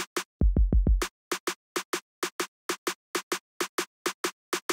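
A snare drum sample in Maschine's sampler is triggered over and over from a pad at fixed velocity, about four identical hits a second, while its gain is being set near −17 dB. Near the start, a short run of quick low thumps breaks in for about half a second.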